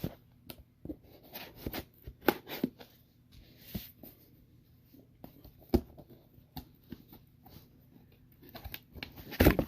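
A cardboard mystery box and its contents being opened and handled: scattered rustles, taps and crinkles of packaging, with a louder rustle near the end.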